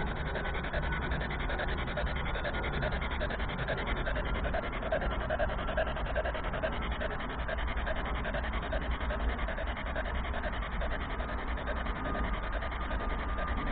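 Steady hiss and crackle of radio static from a handheld spirit box sweeping through stations, with faint tones passing through it.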